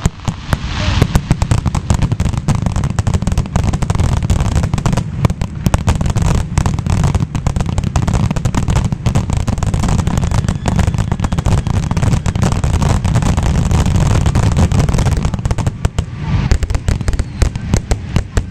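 Aerial fireworks barrage: a rapid, nearly continuous string of shell bursts over a deep rumble, loosening into separate bangs near the end.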